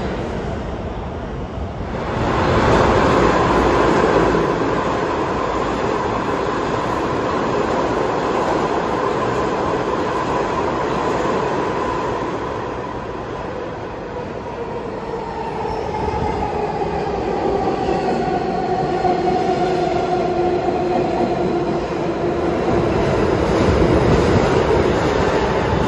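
R160-series subway train pulling into the station: a continuous rumble of steel wheels on rail, and from a little past halfway, the AC traction motors' whine falling in pitch as the train brakes.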